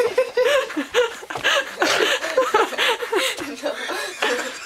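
Teenagers laughing in quick, repeated bursts.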